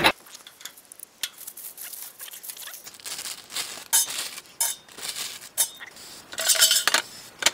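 Scattered kitchen handling sounds: a plastic bag of broccoli crinkling and light clinks of the air fryer basket and utensils, in short irregular bursts.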